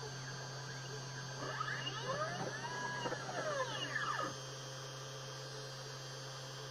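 CNC 3040 router's stepper motors whining in several overlapping rising-and-falling glides as the machine's axes move, over a steady low hum. The glides stop about four seconds in, leaving only the hum.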